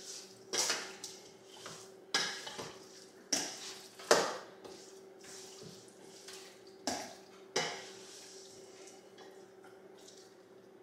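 Kitchenware clinking and clattering as a bowl of chicken wings is mixed with seasoning and baking powder: about six sharp knocks at irregular intervals, stopping a few seconds before the end.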